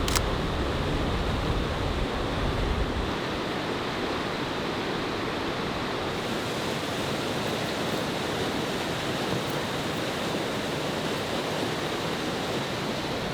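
Steady rushing roar of a waterfall, an even hiss with no let-up. A low rumble sits under it for the first few seconds.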